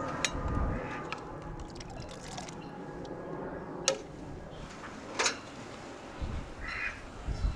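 A metal ladle scooping and pouring bean cooking liquid in a large aluminium pot, the liquid splashing and dripping. A sharp metal click about four seconds in and another clink a second later, then a couple of low thumps near the end.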